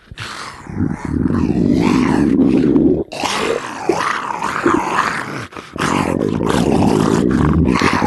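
Exaggerated cartoon stomach-rumble sound effect: loud, deep growling and roaring. It swells in after the first second and runs in long stretches, broken by brief dips about 3 seconds and 5½ seconds in.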